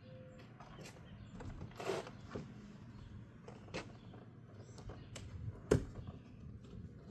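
Scattered knocks, clicks and scrapes of a cardboard shipping box being pried and pulled at its packing staples by hand, with a rustling scrape about two seconds in and one sharp knock about three-quarters of the way through.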